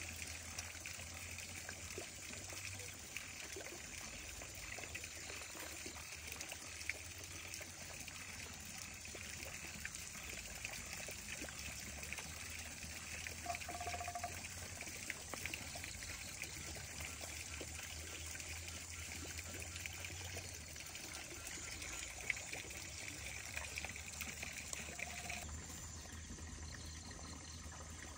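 Tea trickling as it is poured from a kettle into a glass jar, over a steady background hiss.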